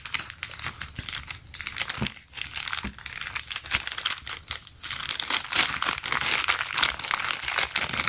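Plastic packaging of a phone case crinkling and crackling as it is handled and opened: a dense run of fine crackles that gets louder about halfway through.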